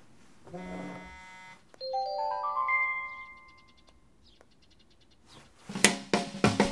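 Smartphone alert chime: a quick run of short bell-like notes climbing step by step in pitch, after a brief low tone. A few sharp clicks near the end.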